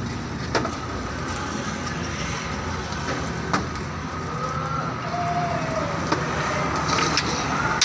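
Steady outdoor street noise with traffic running, and a few sharp clicks scattered through it.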